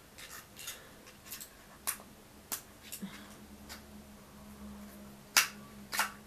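Scattered light clicks and taps from handling a small plastic mini vacuum cleaner, turned over in the hands while its battery compartment is looked for; the loudest click comes about five seconds in.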